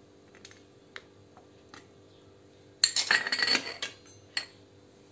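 A metal spoon clinking and scraping against a steel bowl while potato bhaji is spooned into it: a few light taps, then about a second of clatter with a metallic ring about halfway through, and one sharp knock shortly after.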